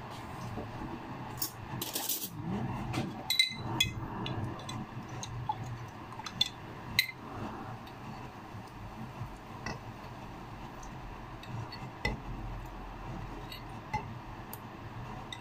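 Dishes, glasses and cutlery clinking and knocking on and off as they are handled, with the sharpest clinks a few seconds in and a dull thump near the end.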